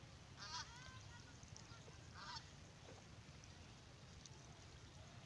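Faint calls from domestic ducks: two short calls about two seconds apart, over a steady low rumble.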